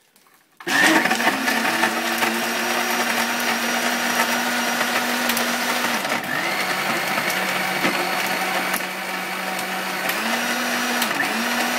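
Electric countertop jug blender running, blending a milkshake of milk and ice cream; it starts about a second in, and its motor note drops a little about halfway through and comes back up near the end.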